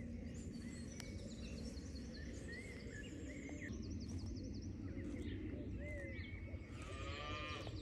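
Several small birds chirping and singing over a steady low background rumble.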